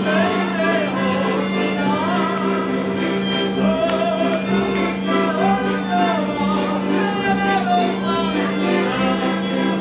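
Background music: a melody that glides up and down over a steady low held note and a repeating pattern of shorter notes.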